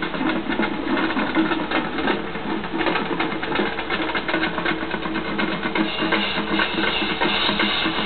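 Marching band performing live on the field, its drums prominent: a dense run of quick drum strokes over the band's sustained low notes.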